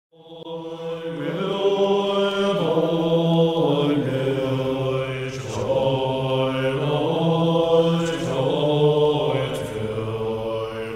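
A voice chanting a prayer in slow, long-held notes that shift in pitch every second or two, fading in at the start.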